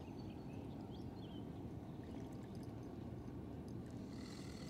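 Steady low rush of flowing water, with a few short bird chirps in the first second.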